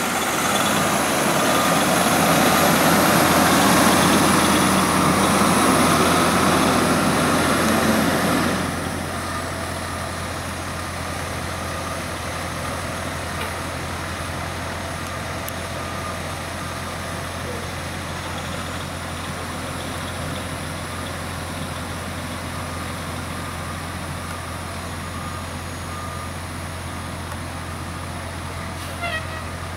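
Diesel engine of a Pierce Enforcer aerial ladder fire truck running. It is loud for the first eight seconds or so, then drops suddenly to a quieter, steady low hum.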